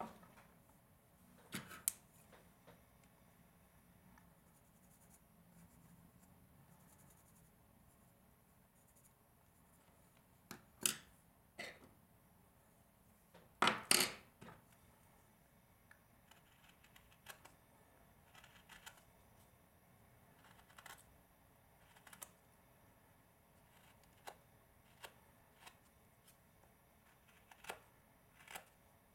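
Small hand carving gouge cutting and scraping wood in short, sparse strokes, with little ticks of chips coming away. The loudest, longer scrape comes about fourteen seconds in; after that the cuts are small and come roughly once a second.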